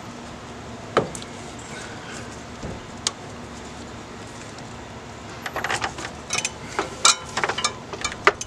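Metal hand tool clicking and clinking against the serpentine belt tensioner as it is levered to slip the belt onto its pulleys: a couple of single clicks, then a quick run of clicks and clinks over the last three seconds.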